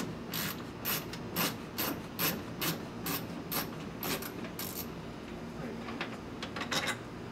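A hand driver clicking steadily as it turns out the 8 mm screws in a truck door, about two clicks a second, then a short pause and a few more quick clicks near the end.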